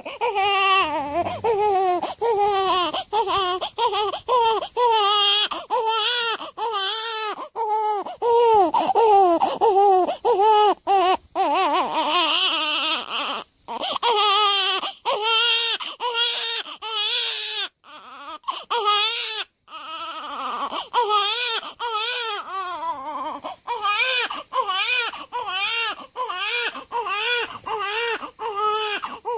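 Newborn baby crying in a long run of short, rising-and-falling wails, about one and a half a second, with a few brief pauses for breath.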